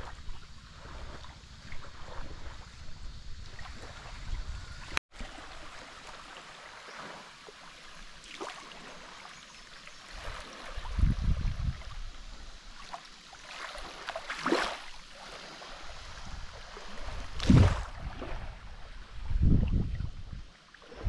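Wind buffeting the microphone in several low gusts, over the soft wash of small waves at a sandy shoreline. A brief break about five seconds in.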